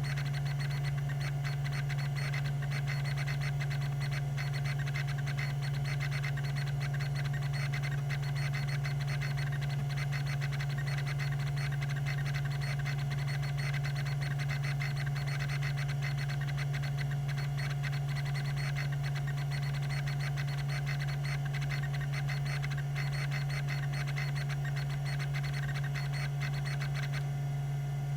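Tandon TM362 hard drive's rack-and-pinion stepper head actuator seeking, a rapid run of ticking steps, over the steady hum of its spinning platters and spindle motor. The rapid stepping stops near the end while the hum goes on.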